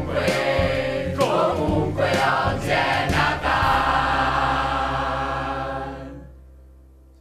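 A mixed group of voices singing together in chorus over backing music. The music ends about six seconds in and dies away.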